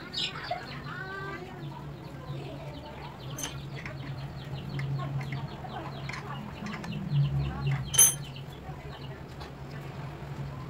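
Birds calling and chirping over a steady low hum, with a light click about three seconds in and a sharp metallic clink about eight seconds in.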